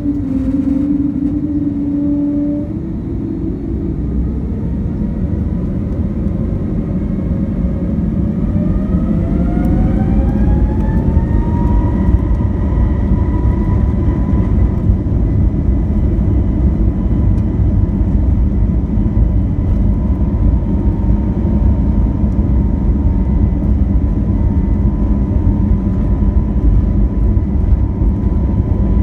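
Airbus A321neo's Pratt & Whitney geared turbofan engines heard from inside the cabin, spooling up to takeoff thrust. A whine rises in pitch about a third of the way in and then holds steady over a loud, growing rumble as the aircraft accelerates down the runway.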